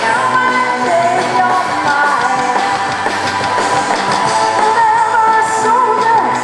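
Live band playing rock music, with a singer holding long, wavering notes over it.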